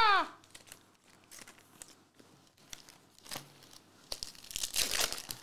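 Trading cards and their packaging handled on a table: soft clicks and rustles, then a louder crinkling, tearing rustle about four seconds in.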